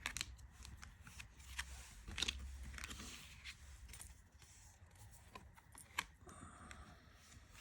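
Tarot cards handled by hand: soft sliding of card stock and a few light taps, the sharpest about six seconds in.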